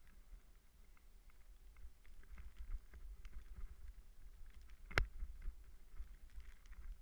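Wind rumbling over the microphone of a camera carried on a moving ride, with scattered light rattles and clicks and one sharp knock about five seconds in.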